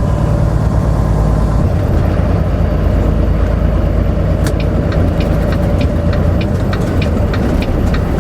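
Semi truck's diesel engine running with a steady low rumble inside the cab. About halfway through, the turn signal starts ticking, about three clicks a second, as the truck signals to turn in.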